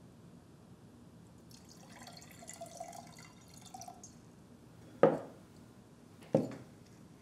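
Water poured from a glass jug into a drinking glass for about two and a half seconds, then two sharp knocks about a second and a half apart as glassware is set down on the wooden table.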